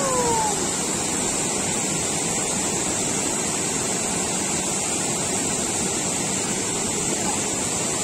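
Steady rushing of a waterfall and river water, an even, unbroken roar.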